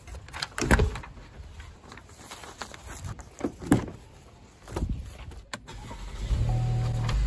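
Knocks and clatters as a car door is opened, then about six seconds in the car's starter cranks briefly and the engine catches, settling into a steady idle.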